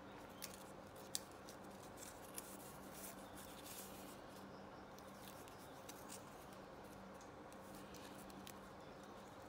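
Small cardboard accordion-fold book handled and folded shut: faint rustling of the card panels with a few light clicks and taps, the sharpest about a second in.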